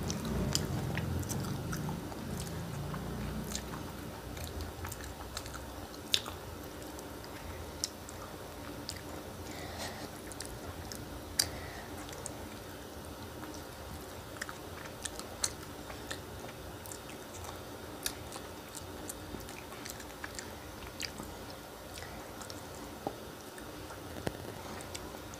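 Close-up chewing of rice and fish curry eaten by hand: wet mouth and lip sounds, with short sharp clicks and smacks scattered irregularly throughout.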